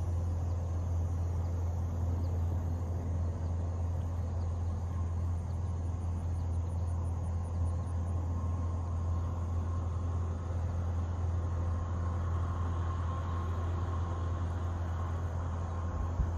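A steady low hum runs without change, with a faint high insect trill in the middle and a faint thin tone from about halfway.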